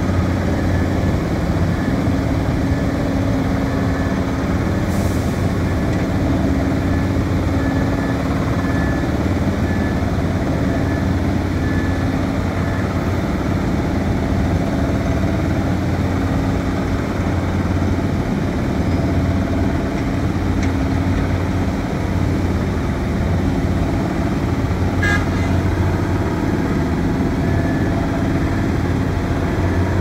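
Heavy diesel engines of a crawler pile-driving rig and an excavator running steadily, a low engine hum. A faint high tone comes and goes, and there is one sharp click near the end.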